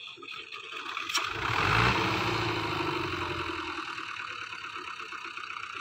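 Fiat 640 tractor's diesel engine revving up under load, loudest about two seconds in, then running on and slowly easing, as it strains at a heavily loaded sugarcane trolley that is stuck.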